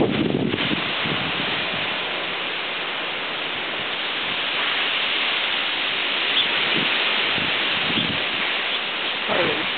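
Steady rushing noise of storm wind and rain, with a short gliding sound near the end.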